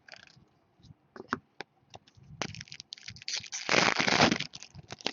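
Trading cards and their packaging being handled on a table: scattered clicks and taps, then about a second of dense rustling and scraping near the end.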